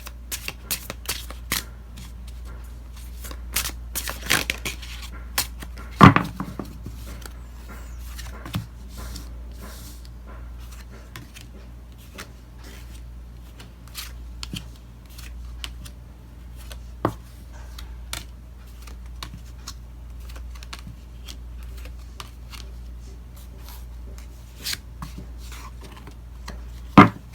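Tarot cards being shuffled and laid out by hand: a quick run of card clicks and snaps for the first several seconds, then scattered clicks and slaps as cards are drawn and placed, with a loud card snap about six seconds in and another near the end.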